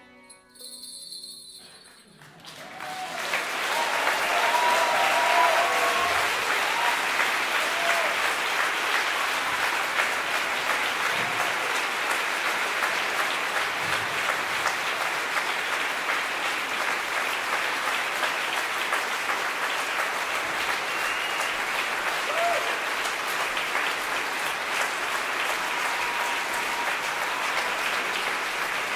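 The mugam ensemble's last notes die away about two seconds in. Then a concert audience applauds steadily, with a few voices calling out above the clapping.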